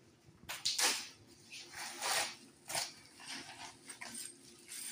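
Crinkling and rustling of a padded paper mailer being pulled open, with a plastic bag of screws handled, in several short bursts.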